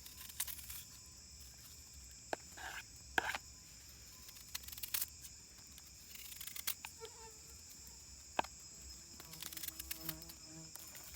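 A bee buzzing close by, its hum coming and going and clearest near the end. A steady high insect chorus runs underneath, with a few sharp clicks and knocks.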